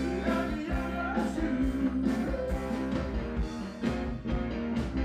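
Live rock band playing amplified, with a steady drum beat under electric guitar, bass and keyboards.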